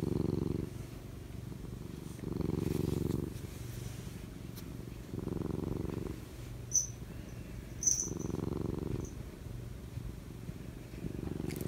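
Domestic cat purring steadily while being stroked, the purr swelling louder for about a second every three seconds or so. Two faint small clicks in the middle.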